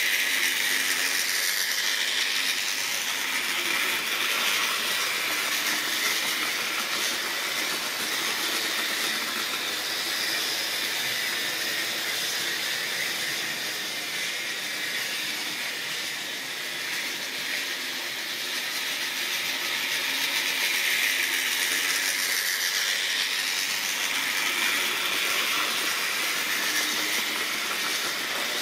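OO-gauge model trains running on sectional track: a steady whirr of small electric motors with the rattle of wheels on the rails. It grows louder as trains pass close, in the first few seconds and again about three-quarters of the way through.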